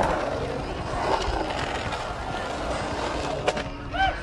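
Skateboard wheels rolling on concrete: a steady rumble that slowly fades as the rider moves away. A brief voice call near the end.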